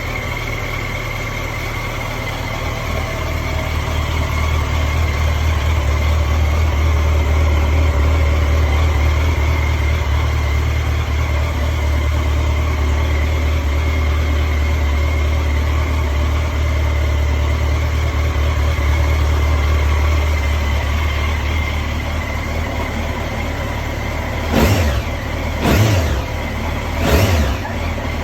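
A 2013 Yamaha Fazer 800's inline-four engine idling steadily on a morning cold start. Near the end the throttle is blipped three times in quick succession, each rev rising sharply and falling back to idle.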